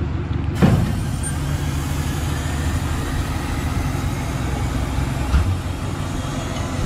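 Tractor engine running steadily while a Kuhn Primor straw blower's hinged side panel opens by hydraulics. There is a sharp clunk about half a second in and a duller thump about five seconds in.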